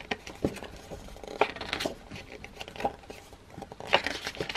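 Glossy paper pages of an album pamphlet being handled and turned: a series of short rustles, crinkles and soft taps.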